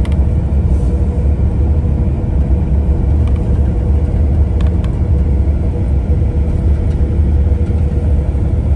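Tour bus driving along, a steady low rumble of engine and road noise, with a faint steady hum above it.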